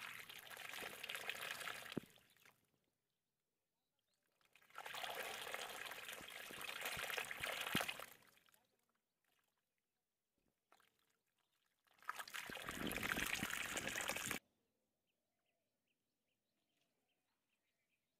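Muddy water pouring out of a hole in a mud bank into a shallow pit, in three spells of a few seconds each with silence between; the last one cuts off suddenly.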